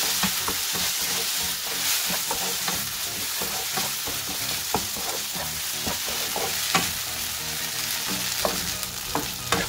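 Vegetables sizzling in a non-stick frying pan while a wooden spatula stirs them, with many small scrapes and taps of the spatula against the pan. A cornflour-and-water slurry has just gone in, and the sizzle is loudest at first, then eases a little.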